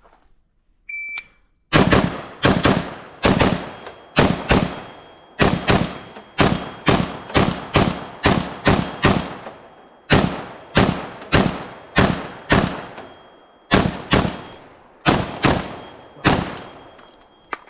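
A short electronic beep about a second in, like a shot timer's start signal, then a long string of some thirty gunshots fired at an uneven pace of about two to three a second, with a few brief pauses between strings.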